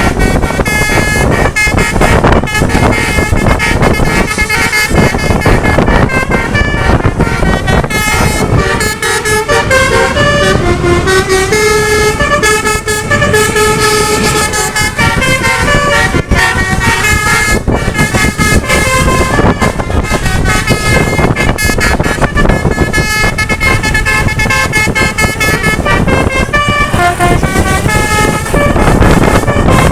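Indonesian bus 'telolet' multi-tone horns, Basuri type, playing stepped melodic tunes of held notes, over a loud, steady rumble of engine and road noise.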